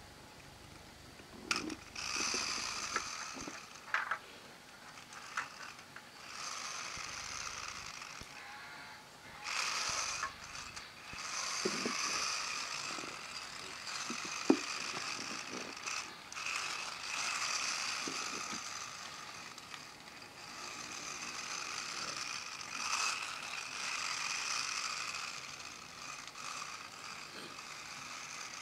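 Pull-back toy train's spring-and-gear motor whirring in a series of runs lasting a few seconds each, with a few sharp clicks and knocks in between.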